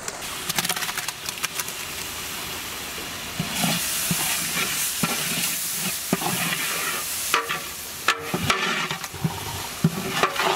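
Masala paste sizzling in hot oil in a large metal pot, with a metal ladle scraping and clinking against the pot as it is stirred. The hiss thickens a few seconds in.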